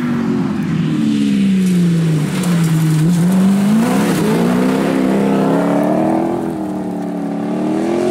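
Rally car engine at high revs. The revs fall over the first three seconds as it slows into a corner, then climb again in steps as it accelerates away past the listener.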